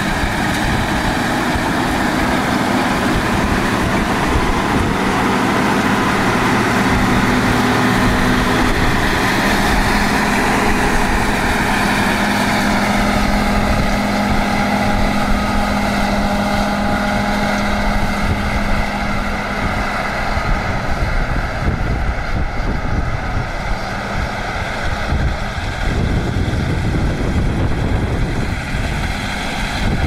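John Deere combine harvester running while harvesting soybeans: a steady engine and threshing-machinery hum with the rush of the cutting header. The hum weakens somewhat past the middle as the combine moves away.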